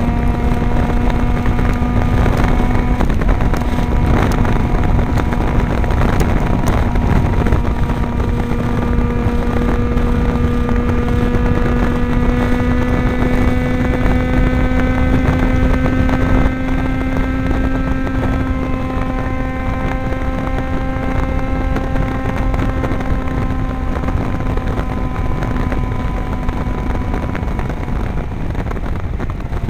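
Yamaha XJ6's inline-four engine running loud through an aftermarket stainless Power exhaust with a carbon-fibre tip, held at steady high revs. The pitch creeps up over about fifteen seconds and then eases off slightly, with wind on the microphone.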